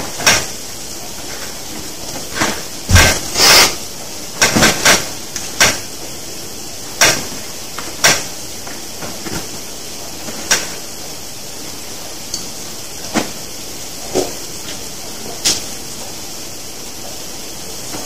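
Steady hiss with about twenty short clicks and taps scattered unevenly, from a metal energy-drink can being handled and sipped from.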